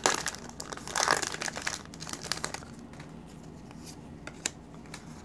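Foil booster-pack wrapper being torn open and crinkled by hand, loudest in the first two seconds, then fading to a few faint ticks of handling.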